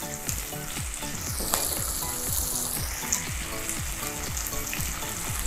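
Sliced mushrooms and garlic, with fresh basil and rosemary leaves, sizzling in oil in a nonstick frying pan, a steady frying hiss.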